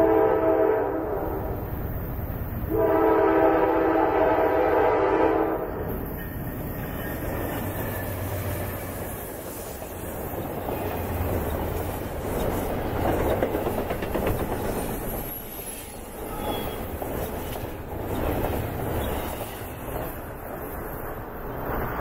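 Freight locomotive air horn sounds a short blast, then a longer one. A double-stack intermodal freight train then rolls past with a steady rumble and clatter of its wheels on the rails.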